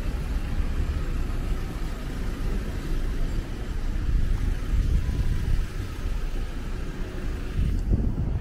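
Low, uneven rumble of outdoor noise, strongest in the bass.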